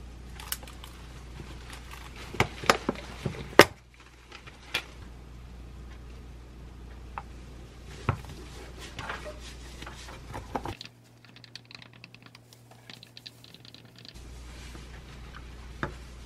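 Light clicks and knocks of kitchen containers and glassware being handled on a countertop, loudest in a cluster of sharp taps a few seconds in. Later there is a quick run of faint clicks as cocoa powder is mixed into an espresso shot.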